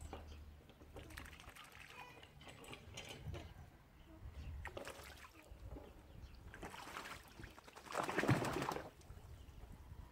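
Mandarin duck bathing in a shallow pond, splashing water in irregular bursts, the biggest splash lasting about a second near the end.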